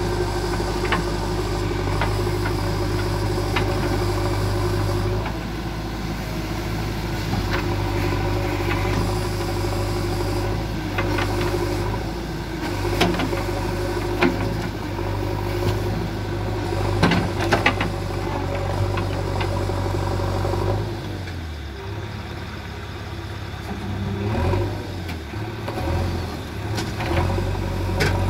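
JCB 3DX backhoe loader's diesel engine running steadily, with a few sharp knocks about halfway through. The engine drops off for a few seconds about three-quarters through, then picks up again near the end.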